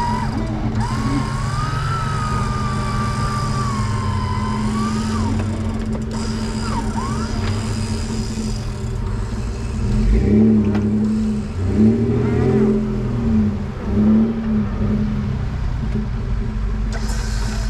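Off-road trucks idling in snow, with a wavering whine over them for the first few seconds. About ten seconds in come four short surging pulses as a winch cable pulls a stuck Jeep Wrangler out.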